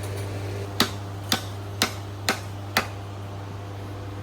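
Five sharp taps in a row, about two a second, from tool work on the car, over a steady low hum.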